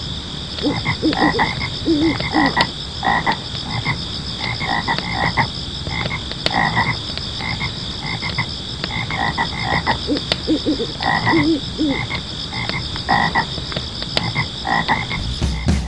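Frogs croaking in a forest ambience: repeated short calls over a steady, fast-pulsing high-pitched chorus.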